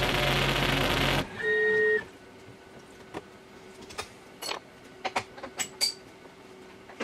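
Tormach 440 CNC mill cutting aluminium with coolant, the cut stopping abruptly about a second in. A short beep follows, then a faint steady machine hum with scattered sharp clicks and clacks as the mill is stopped for a tool change.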